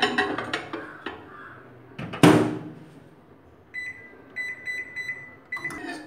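Microwave oven in use: a glass dish clatters onto the turntable, then the door shuts with a loud knock about two seconds in. Several short high beeps from the microwave follow, and a clack near the end as the door is opened again.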